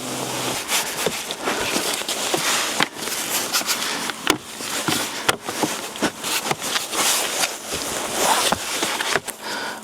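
Tesla's plastic interior trim pieces being handled and forced back into place: a busy run of clicks, knocks and scraping rubs.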